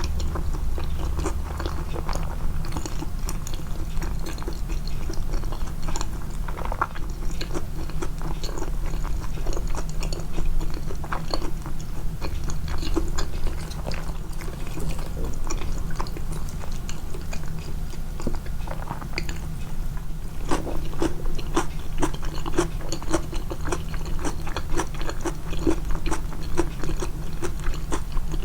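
Close-miked chewing and biting of food, a dense run of short sharp clicks and mouth sounds that grows busier near the end, with the eating sounds boosted in the mix.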